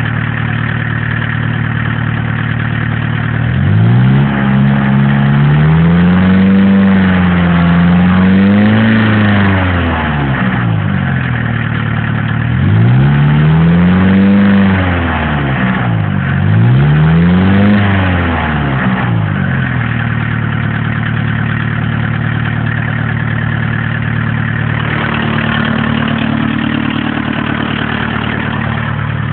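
1981 VW Rabbit's four-cylinder diesel engine idling, then revved three times: first held up for several seconds, then two shorter blips. Each time it falls back to a steady idle, with a diesel's knocking clatter throughout.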